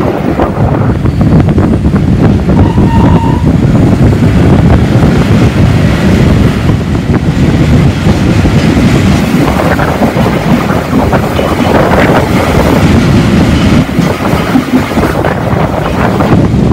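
Steam-hauled heritage train of wooden carriages running, heard from an open carriage window: a steady rumble of the coaches and wheels on the rails, with wind on the microphone.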